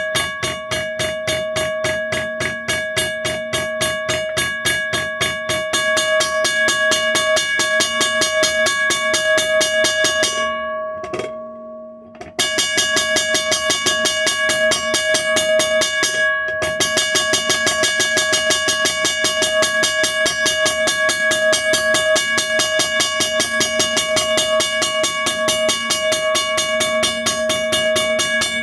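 1982 first-generation Western Cullen Hayes mechanical crossing bell ringing loud, its motor-driven striker hitting the gong in a rapid, even rhythm. The strikes quicken about six seconds in, then stop around ten seconds in while the gong rings down, and the bell starts up again a couple of seconds later.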